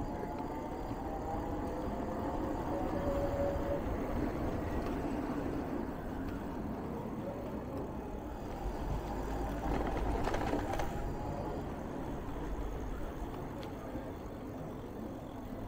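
Steady wind rush and tyre noise from riding an electric bicycle with a 48V 1000W rear hub motor, with faint wavering whine tones in the first few seconds.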